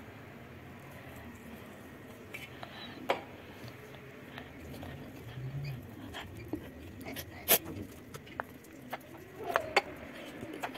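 A small glass pressed into soft dough on an aluminium baking tray: scattered light clicks and taps as the glass and hand touch the tray, the sharpest about seven and a half seconds in and two more close together near the end.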